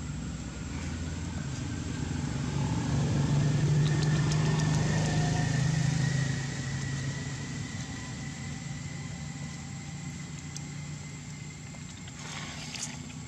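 A motor vehicle's engine passing by: its hum grows louder over the first few seconds, peaks around the middle, then fades away.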